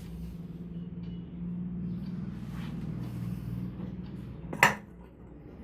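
Head massage with a low steady hum underneath and one sharp, loud smack about four and a half seconds in.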